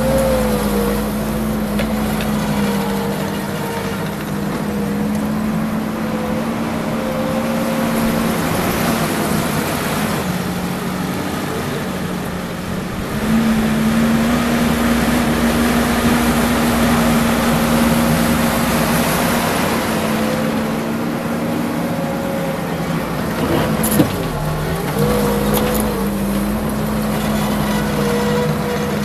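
Kubota SVL75 compact track loader's four-cylinder diesel running at steady high revs while spreading fill. About halfway through the engine note steps up a little louder. Near the end the engine sags briefly under load and recovers, with a single sharp clank.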